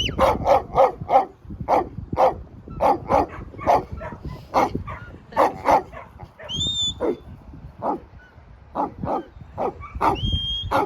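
Working sheepdog barking over and over in quick runs of three to five barks, with two short high whistles partway through and near the end.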